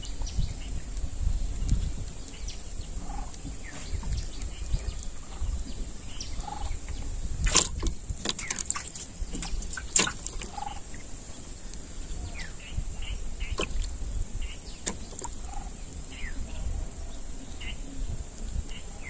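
Outdoor ambience: wind rumbling on the microphone, with short bird calls every second or two and a few sharp clicks.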